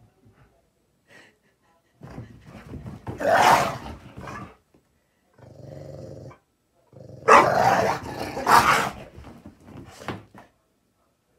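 Dogs growling and barking in rough bursts while they play-fight. The loudest bursts come about three and a half seconds in and again around seven to nine seconds in, with a steady low growl between them. The mean-sounding noises are play, not aggression.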